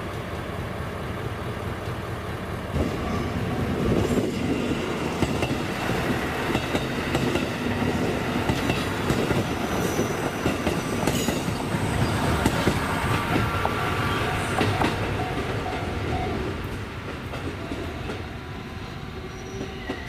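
KiHa E130 diesel railcar pulling slowly into a station, its wheels clicking over rail joints with a low rumble, and a thin wheel squeal between about 13 and 16 seconds in as it slows, the sound then easing off as it comes to a stop.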